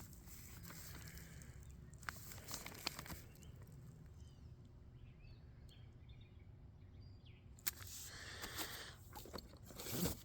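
Faint handling of boxed firework cakes: a few soft cardboard knocks and crinkles over low outdoor background noise, with a quieter stretch in the middle.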